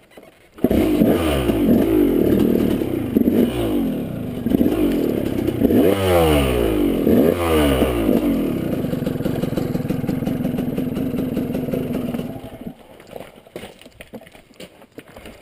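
KTM 200 two-stroke dirt-bike engine starting up about half a second in and being revved several times, its pitch rising and falling, then running steadily before going quiet about twelve seconds in.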